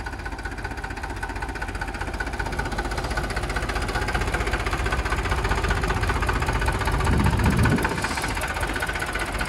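Mahindra 265 DI tractor's diesel engine labouring under heavy load in first gear low as the tractor struggles to climb a sand dune. The steady engine note grows louder over the first seven seconds, then eases slightly.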